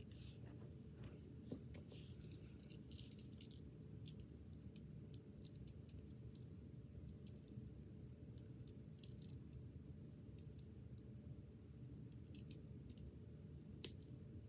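Faint, irregular clicks of a plastic Rubik's Cube's layers being turned by hand, busiest in the first few seconds, with one sharper click near the end, over a low steady room hum.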